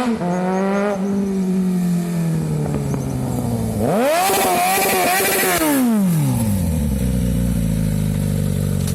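Suzuki Bandit motorcycle's inline-four engine revved loudly. The pitch sinks gently at first. About four seconds in it climbs sharply to a high scream, holds for about a second and a half, then drops back and settles into a steady low running note.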